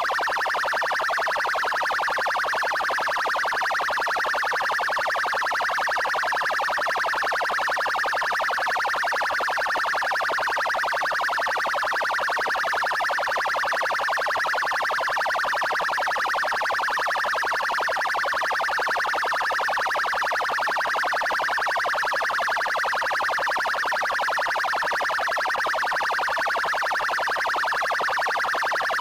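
Electronic police siren sounding its 'trail' tone: a rapid pulsing tone that never breaks or changes pitch range.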